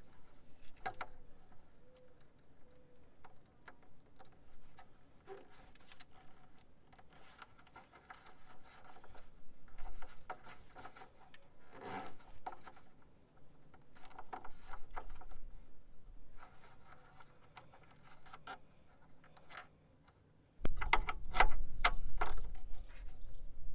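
A rubber transmission cooler hose being worked by hand onto a barbed 90-degree fitting: on-and-off rubbing and scraping of rubber on metal, with small clicks. About twenty seconds in, a sudden, much louder low rumble with sharp knocks starts and runs on.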